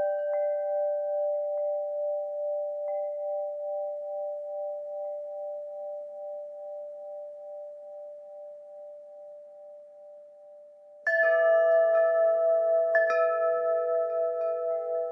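Wind chimes ringing. Notes struck just before fade slowly with a gentle pulsing. About eleven seconds in the chimes are struck again, with a few more strikes about two seconds later.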